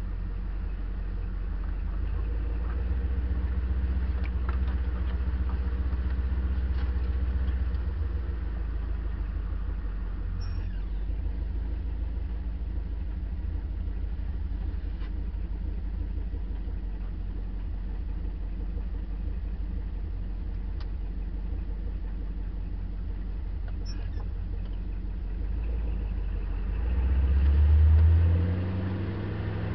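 Land Rover Series 2a engine running at low revs as the vehicle crawls along a dirt track, with a steady low drone; near the end the revs rise in a brief louder surge.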